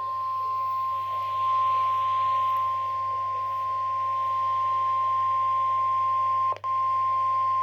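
NOAA Weather Radio warning alarm tone, a single steady 1050 Hz beep held for several seconds. It cuts out for an instant about six and a half seconds in, then resumes. It signals that an alert broadcast follows, here a severe thunderstorm watch.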